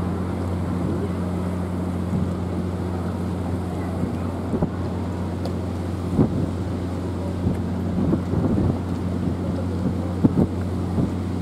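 Wind buffeting the microphone in irregular gusts, over a steady low hum.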